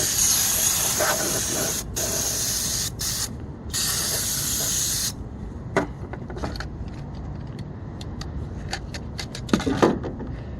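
Aerosol can of air intake cleaner spraying into an engine's air intake in four hissing bursts over the first five seconds, the first and last each lasting a second or more. Light clicks and handling noises follow.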